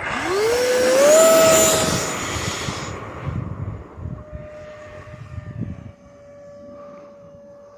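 Electric ducted-fan motors of an E-flite F-15 Eagle 64mm RC jet spooling up to full throttle with a sharply rising whine and rush of air, then fading from about two seconds in to a quieter steady whine as the jet moves away.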